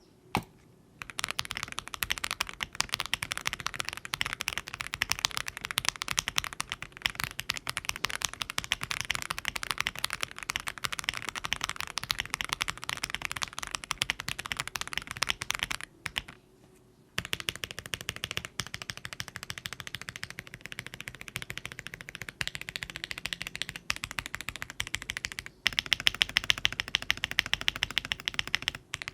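Typing on an MWStudio MW65 Lite gasket-mount acrylic 65% keyboard with Akko Jelly Black linear switches and PBT keycaps: a fast, steady run of keystroke clacks. The typing stops for about a second just after halfway, then resumes, with a quicker, louder burst near the end.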